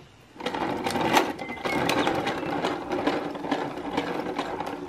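A child's plastic toy push lawn mower clattering rapidly and steadily as it is pushed along concrete, starting about half a second in.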